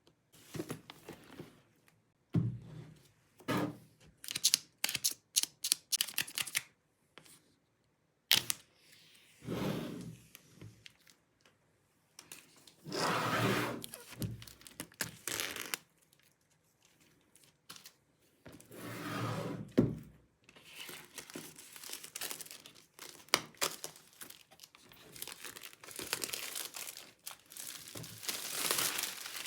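Packaging of a MacBook Pro box being opened by hand: wrapping tearing and crinkling in irregular bursts, with sharp clicks and a few dull knocks between them.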